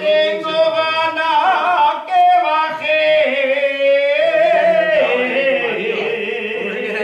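A man singing an Aragonese jota solo, holding long drawn-out notes that bend and waver in pitch.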